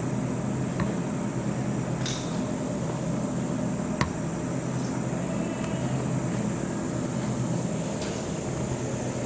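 Steady mechanical hum and hiss, with a few sharp clicks about two, four and eight seconds in.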